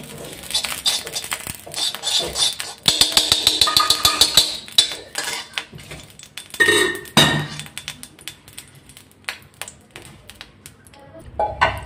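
Metal spoon scraping and clinking against a metal kadhai and a steel bowl while scooping out solid desi ghee: a dense run of clattering taps in the first half, a louder clink or two about halfway, then scattered light taps.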